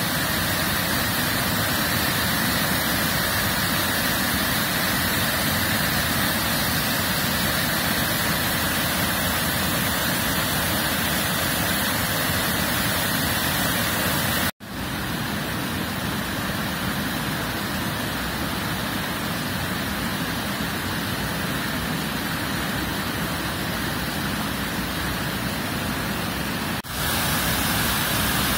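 Rocky stream rushing and splashing over boulders in a steady wash of white water. The sound cuts out for an instant about halfway through and resumes slightly quieter, then dips briefly again near the end.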